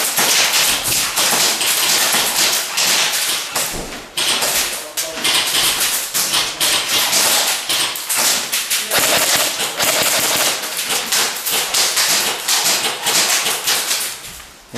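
Airsoft guns firing in long rapid runs, a dense rattle of sharp clicks and taps, with short breaks about four and nine seconds in.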